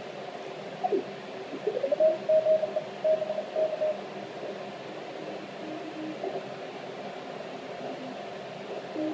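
Icom IC-781 HF transceiver receiving the 20-metre CW band over steady band hiss. Morse code signals sweep in pitch as the tuning dial is turned, then one keyed Morse tone holds a steady pitch for about two seconds. A fainter, lower Morse signal keys on and off through the second half.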